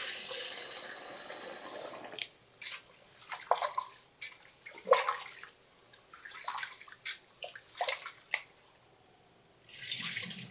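Tap water running into an aluminium pressure cooker pot of rice, shutting off about two seconds in. Hands then swish and rub the rice in the water, with scattered splashes and light knocks against the pot. Water pours again near the end.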